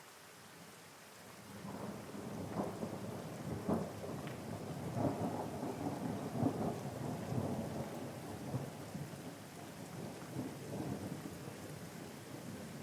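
Steady rain with a long roll of thunder that builds about a second and a half in, crackles and rumbles loudest in the middle, then slowly dies away.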